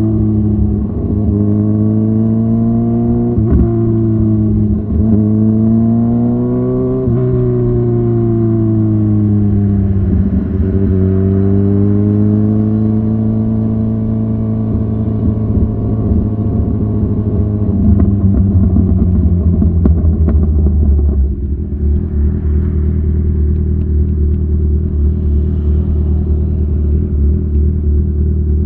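Kawasaki Ninja 1000SX inline-four breathing through Lextek headers and an Austin Racing end can, pulling up through the gears with the pitch dropping sharply at each shift, then easing off. About three-quarters of the way through it settles to a steady idle.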